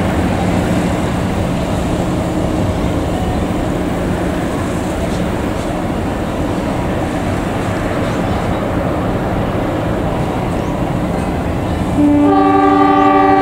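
Passenger train carriages rumbling along the rails as they pass and draw away. Near the end, a train horn sounds loud and steady, a chord of several tones held for about two seconds.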